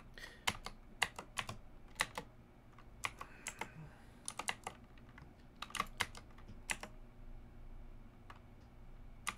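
Typing on a computer keyboard: quick, irregular runs of key clicks with short gaps, and a longer pause near the end.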